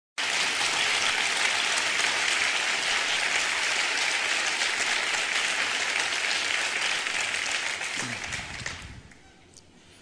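Studio audience applauding, the clapping dying away about nine seconds in.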